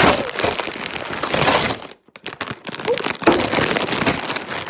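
Cardboard box being handled right at the microphone: loud crackling and rustling with many sharp clicks, stopping briefly about two seconds in and then going on.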